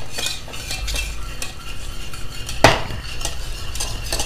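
A wire whisk scraping and clinking against the inside of a stainless steel saucepan in quick, continuous strokes, whisking pea flour into hot water as it thickens. There is one louder knock about two and a half seconds in.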